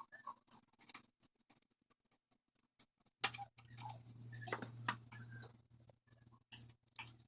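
Faint, irregular light clicks and scratching, with a low steady hum that comes in about three seconds in.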